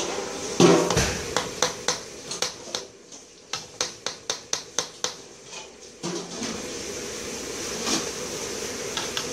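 Metal slotted spatula knocking and scraping against a metal wok while slices fry in hot oil: one louder knock, then a quick run of sharp clicks at about four a second, giving way to steady oil sizzle near the end.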